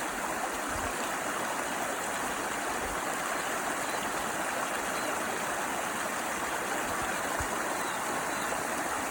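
Small waterfall on a brook, water pouring and splashing in a steady, even rush.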